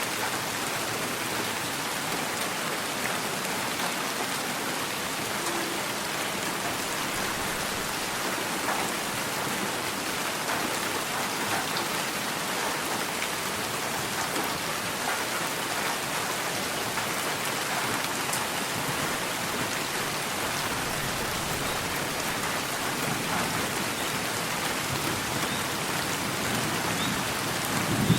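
Steady rain falling, an even hiss of many drops. A clap of thunder breaks in right at the end.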